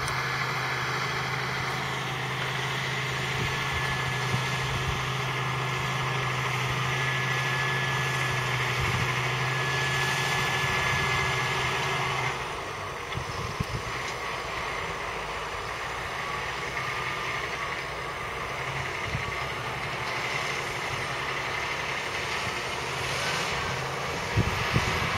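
Valtra T174 tractor's 7.4-litre six-cylinder diesel engine running steadily under load, pulling a five-furrow reversible plough through the soil, with a steady high whine over the engine note. About halfway through the sound drops a little quieter and the engine note grows weaker.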